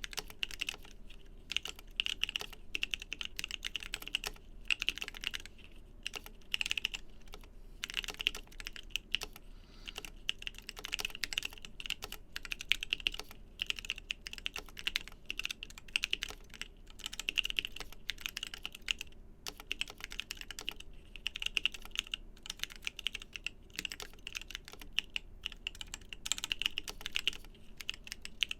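Continuous fast typing on a 60% mechanical keyboard with lubed, filmed TKC Kiwi 67g tactile switches and DSA-profile keycaps: a dense stream of keystroke clicks and clacks with brief pauses.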